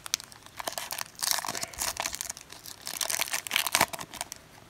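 Foil wrapper of a Pokémon Steam Siege booster pack crinkling and tearing as it is ripped open by hand, in irregular bursts that are loudest about three to four seconds in.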